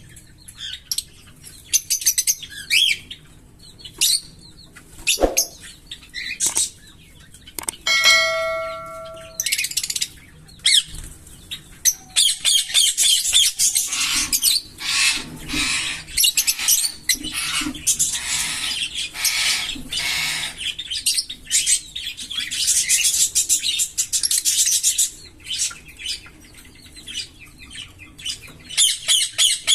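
A pair of green Fischer's lovebirds chirping in scattered high calls, then breaking into a long run of rapid chattering song, the 'giggle', for over ten seconds from about twelve seconds in.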